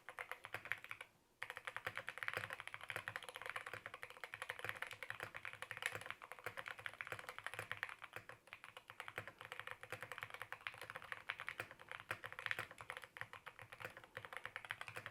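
Fast typing on a Keychron K2 HE All-Wood keyboard, with Gateron Double-Rail Nebula linear magnetic switches, PBT keycaps and a walnut wood case. Keystrokes come in a dense, rapid stream, with a short pause about a second in.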